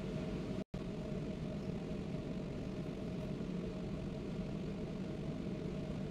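Steady low mechanical hum with a constant pitch, cut by a brief dropout to silence under a second in.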